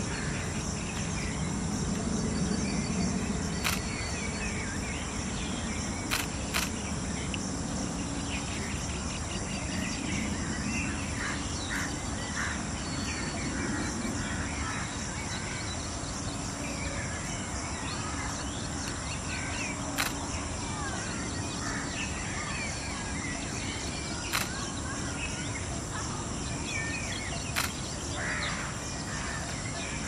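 Outdoor bird and insect ambience: scattered short bird calls over a steady high insect buzz, with half a dozen sharp clicks.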